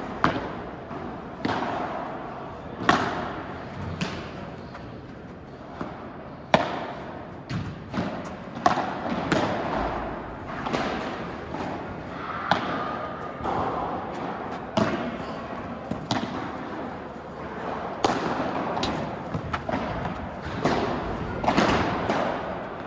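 Padel ball being struck by rackets and bouncing on the court during a rally: a sharp knock every second or so, at an irregular pace.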